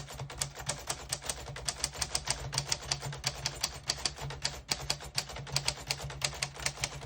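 AMC manual portable typewriter being typed on at a steady pace: a continuous run of sharp typebar strikes, about five or six a second, with the keys striking cleanly and none skipping or sticking.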